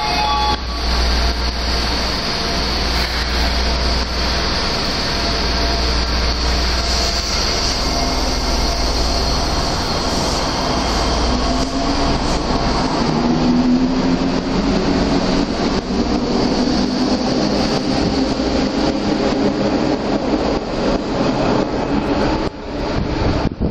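Toei Ōedo Line subway train at an underground platform: a steady heavy low rumble, then a low motor whine that rises in pitch about halfway through as the train pulls away.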